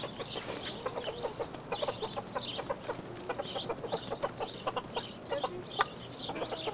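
Chickens clucking, a dense run of short calls several a second, with higher chirps among them and a single sharp tick near the end.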